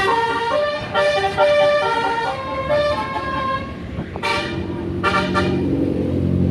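A bus's 'telolet basuri' multi-tone musical air horn playing a tune of held notes that step up and down in pitch, followed by two shorter horn blasts about four and five seconds in. The bus's engine drone rises underneath near the end.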